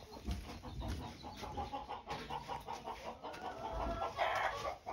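Chickens clucking, with one louder call about four seconds in and a few low thuds.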